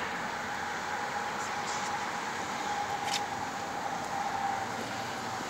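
Steady outdoor background noise with a faint, even hum, and a few brief, faint high-pitched chirps.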